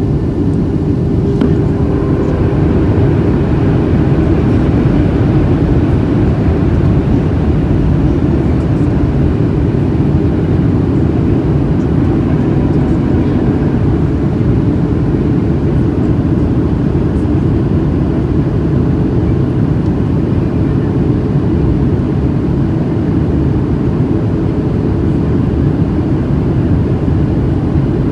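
Boeing 737-700 heard from inside the cabin in flight: a steady drone of its CFM56 turbofan engines and rushing airflow, with a constant hum running through it and no change in level.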